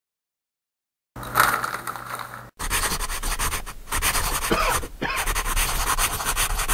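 Pencil scratching across paper in quick, dense sketching strokes, starting about a second in after silence, with a short break before running on steadily.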